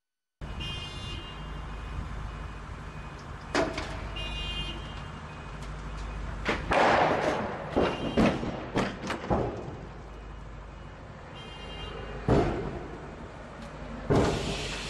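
A mobile missile launcher vehicle's engine running steadily while its missile canister is raised upright. Three short bursts of rapid warning beeps sound, and a string of loud clanks and thuds comes mostly in the middle.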